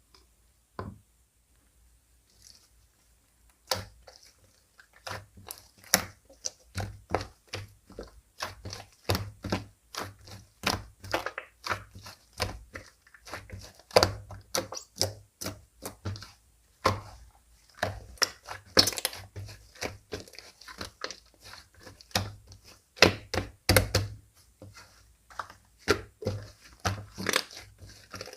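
Slime being pressed, poked and folded by hand, giving a quick, irregular run of sticky pops, clicks and crackles. It is nearly quiet for the first few seconds, then the popping goes on almost without pause.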